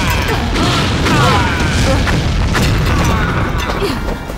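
Film explosion sound effects: a heavy, continuous rumble of blasts with a few sharper bangs, as the wooden donkey's hidden cannon fires. Men cry out over the blasts.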